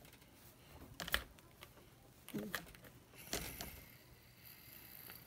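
Soft clicks and taps of plush toys and a tiny toy cup being handled, in two short clusters about a second in and just past three seconds, with a brief faint murmur of a voice in between.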